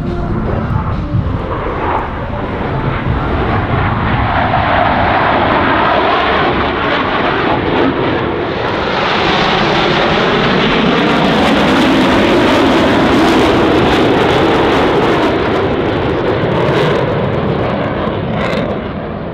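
Blue Angels F/A-18 Super Hornet jets flying past. The jet roar builds over several seconds, is loudest around the middle with a slow sweep in pitch, and eases off near the end.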